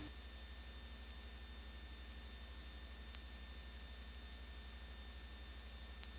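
Faint steady electrical hum and hiss from a blank stretch of old videotape, with a thin high whine and a tiny click about three seconds in.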